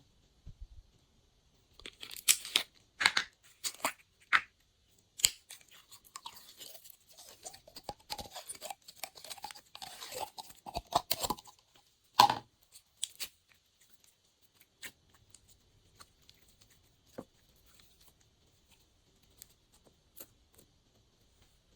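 Glossy slime being squished and folded by hand with mix-ins: sticky crackling clicks and pops, dense for the first half, with one loud pop about twelve seconds in, then only scattered clicks.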